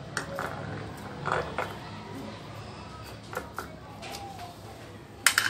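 Hands rubbing oil over a kneaded ball of puri dough in a bowl: soft squishing and handling sounds with light clicks, and a sharp knock of crockery about five seconds in.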